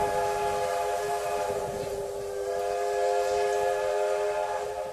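Locomotive whistle sounding one long, steady note of several pitches together, cutting off near the end.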